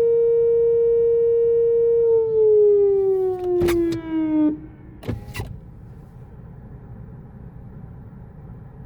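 Whelen WPS 4004 electronic outdoor warning siren holding a steady tone, then winding down in pitch for about two seconds and cutting off abruptly at the end of the test. Two brief pairs of knocks come during and just after the wind-down, then only a low background hum remains.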